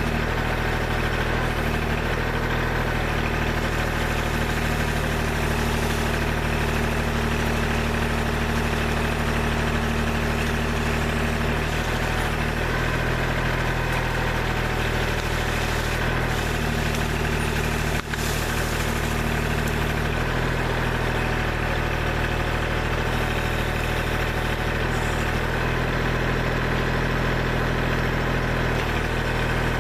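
Kubota backhoe's diesel engine running at a steady speed.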